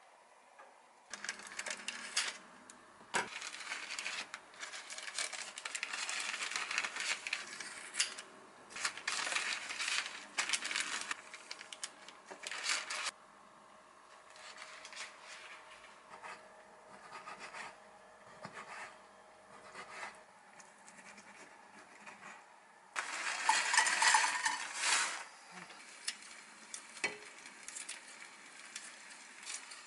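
Kitchen prep handling sounds: baking paper and a plastic zip bag rustling and crinkling as bacon strips are wrapped, with light clinks and taps of utensils. A loud burst of rustling comes about 23 seconds in.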